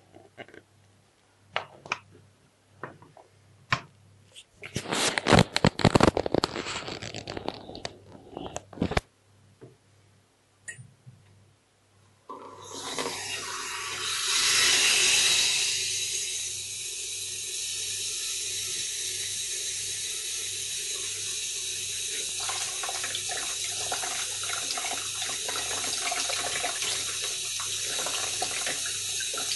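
Knocks and rustles from handling for the first dozen seconds. Then a kitchen mixer tap is turned on and runs steadily into a stainless-steel sink, briefly louder a few seconds after it opens. From about two-thirds of the way in, the stream breaks up and splashes as a Sony Xperia Z phone is held under it.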